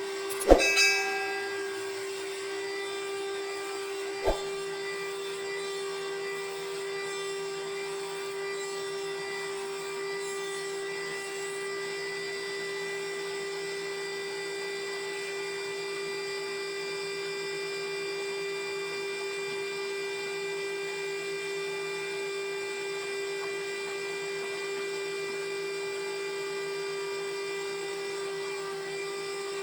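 Sawmill machinery running with a steady high whine. A loud metallic clang that rings on comes about half a second in, and a short sharp knock about four seconds in.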